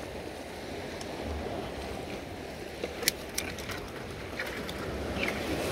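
Steady wash of the sea against a rocky shore, with a few sharp clicks about three seconds in.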